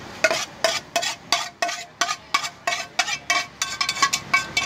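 A metal spatula tapping against a metal pan again and again to knock cooked Maggi noodles out onto a plate. The taps ring and come about three a second, getting quicker near the end.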